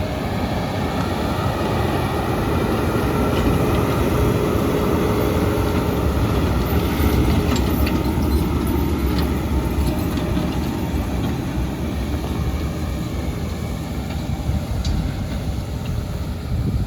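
Fendt 724 tractor and Massey Ferguson RB156 round baler working in a hay field: the engine runs steadily under load while the baler's pickup and bale chamber rattle and clatter. The sound swells to its loudest midway, then eases off.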